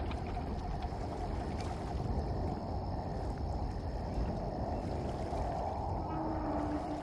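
Steady, muffled rushing of flowing water with a deep low rumble, like a river running beneath the bridge.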